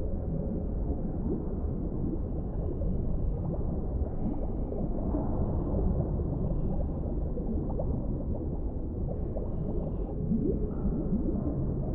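Underwater ambience: a steady low rumble with bubbling, many short rising blips that cluster in the middle and again near the end.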